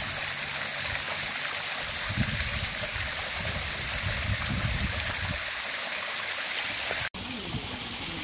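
Spring water spilling down a rock face in a small roadside waterfall, a steady splashing rush, with a plastic bottle held under the flow to fill it. About seven seconds in the sound drops out for an instant and returns as a quieter splash.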